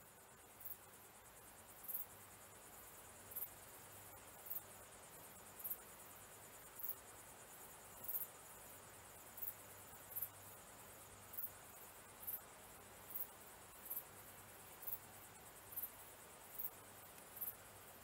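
An insect, cricket-like, chirping at night in short, very high-pitched chirps about once a second that come a little faster toward the end.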